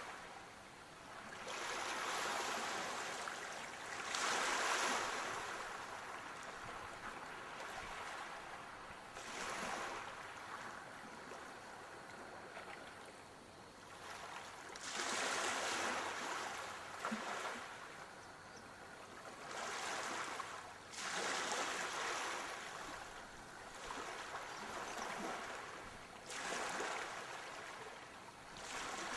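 Sea waves breaking on a shore, a continuous rush of surf that swells and recedes every few seconds.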